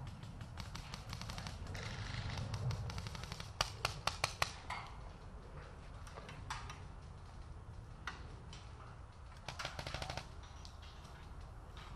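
Paintball markers firing: a quick rattle of shots at the start, a string of five sharp pops in quick succession about four seconds in, odd single shots, and a fast rapid-fire burst near the end.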